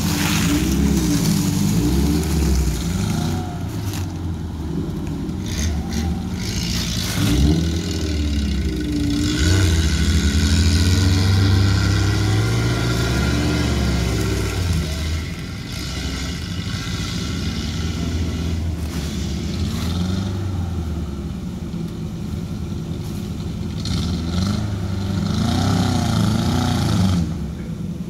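Suzuki Jimny-type off-road jeep's engine revving up and down under load as it climbs a steep slope, loudest about a third of the way through and dropping off suddenly near the end.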